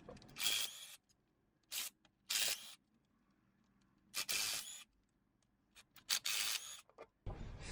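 Five short hissing bursts, each under a second long, with silence between them.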